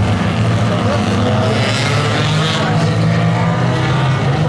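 A pack of compact Tuner-class race cars running together on a short oval, a steady drone of many small engines whose note rises slightly partway through.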